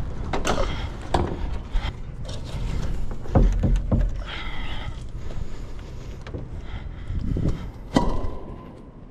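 Knocks, thuds and scrapes from a body-worn action camera being jostled as the wearer moves and climbs, over a low rumble of handling noise. There is a brief squeak about four seconds in, and near the end a sharp knock rings on for about a second.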